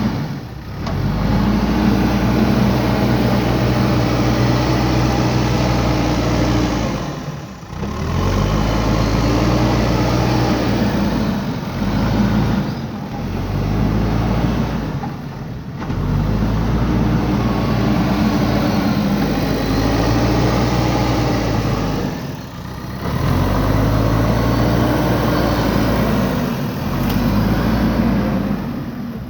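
JCB 3DX backhoe loader's diesel engine working under load, its pitch rising and falling every few seconds as the hydraulics dig and lift, with brief drops in level several times.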